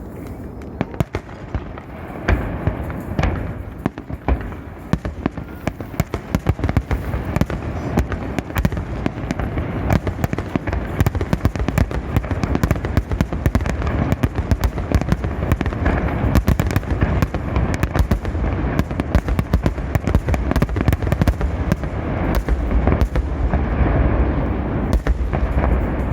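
Fireworks display: a rapid, continuous barrage of bangs and crackles over a steady low rumble, growing a little louder toward the end.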